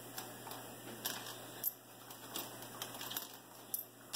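Coins clicking and clinking against each other as they are handled one by one: scattered light clicks at irregular intervals, a few a second.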